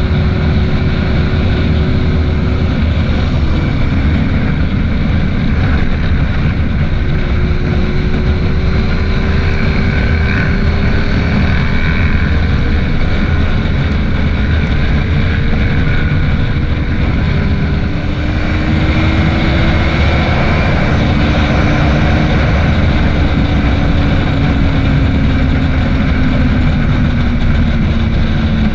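Motorcycle engine, a Yamaha FZ6's inline-four, running at road speed, its pitch drifting slowly up and down and falling over the last several seconds as the bike eases off. Heavy wind rumble on the microphone runs under it.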